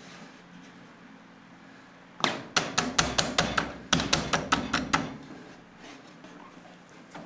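Ryobi BT3000 table saw's blade-tilt handwheel being cranked to set the bevel angle, giving a quick run of sharp clicks, about six a second, then a brief pause and a second run.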